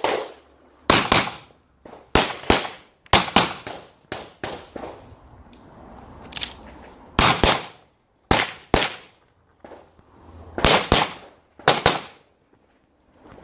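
Pistol shots fired rapidly during an IPSC stage, mostly in quick pairs (double taps) with short pauses between them as the shooter moves from target to target.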